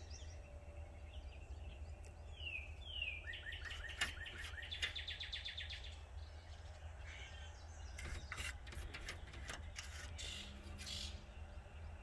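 Northern cardinal singing: two down-slurred whistles followed by a quick run of repeated notes, a few seconds in. Later comes a series of sharp knocks, a cat pawing at a glass door.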